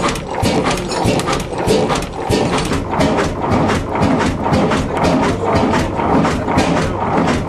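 Crossley reversible stationary engine running, its flywheels turning and its valve gear clattering in a rapid, even rhythm of ticks and knocks over a low rumble.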